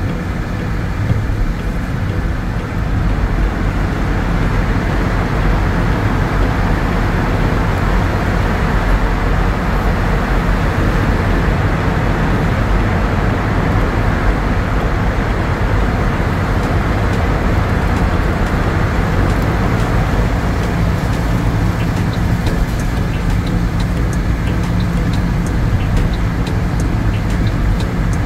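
A car driving in traffic, heard from a dash cam: a steady low rumble of engine and tyres on the road, with faint ticks near the end.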